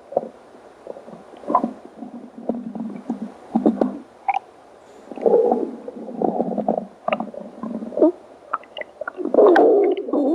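Hungry stomach growling: a string of irregular short gurgles, squelches and pops, then a longer, wavering growl near the end.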